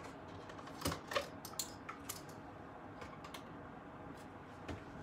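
Light clicks and knocks of small items being set down and handled on a hard surface, about eight scattered strikes, the loudest just after a second in and one more near the end.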